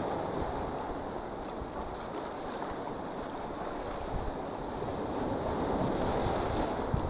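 Sea surf breaking and washing over shoreline rocks, a steady rushing wash that swells louder about six seconds in, with wind buffeting the microphone.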